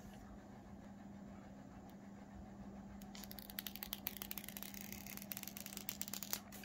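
Thin clear plastic protective film being peeled off a phone's glass screen, crackling and crinkling with many small sharp clicks. It starts about three seconds in and stops shortly before the end, over a steady low hum.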